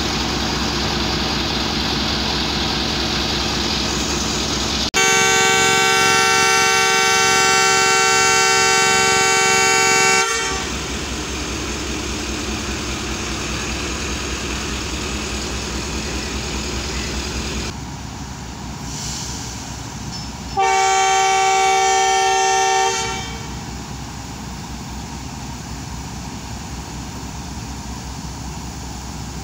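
Diesel-electric locomotive, a ZCU-30, running at idle, with two long blasts of its air horn in a chord of several tones: the first lasts about five seconds, starting about five seconds in, and the second lasts about two seconds, starting about twenty seconds in. The horn is sounding for the train's departure.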